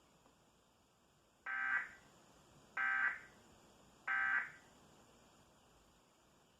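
Emergency Alert System end-of-message (EOM) tones: three short, buzzing bursts of SAME digital data, each about half a second long and spaced a little over a second apart. They signal the end of the EAS message.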